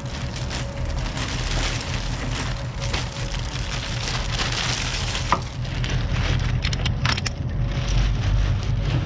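Thin clear plastic bag crinkling and rustling as it is pulled off a coiled set of truck air and electrical lines, with a sharp click about five seconds in.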